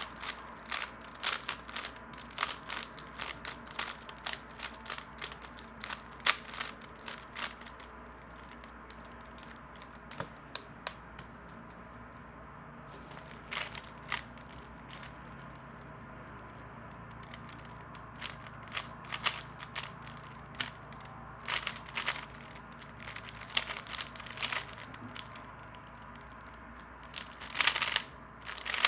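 Plastic 3x3 speedcube being turned fast, its layers clacking in quick runs of clicks. The runs are dense at first, thin out to a few short bursts in the middle, and finish with a louder flurry near the end.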